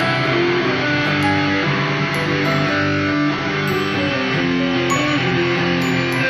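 Background music: a melody of held notes changing pitch at a steady level.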